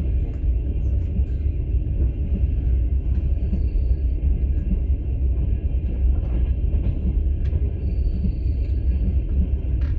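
Steady low rumble of a moving passenger train, heard from inside a platskart sleeper carriage.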